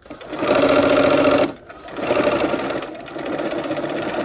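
Electric sewing machine stitching a quilt seam, running in two spurts: it stops briefly about a second and a half in, then starts again and runs on.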